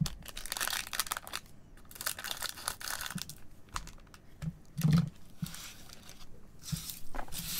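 Foil wrappers of Panini Donruss trading card packs crinkling in irregular spells as the packs are handled and stacked, with a soft thud about five seconds in as one is set down.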